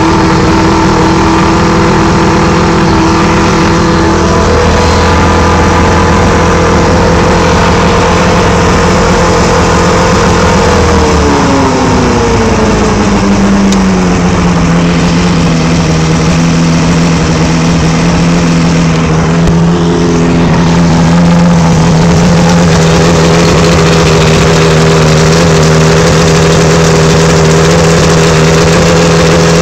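1984 Evinrude 90 hp two-stroke V4 outboard, freshly rebuilt with new pistons and bearings, running out of the water. It runs at a raised speed, picks up a little about four seconds in, then slows down to a steady idle over a few seconds about halfway through.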